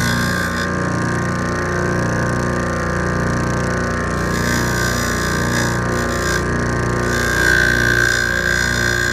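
Electric grinder running steadily, grinding down the cut-off stub of the keyring on a Victorinox Pioneer pocketknife.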